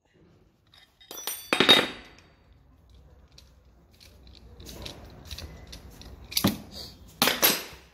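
Metal tools clanking and rattling against metal parts, with scattered small ticks. There are three loud, short, ringing clatters: one about one and a half seconds in and two close together near the end.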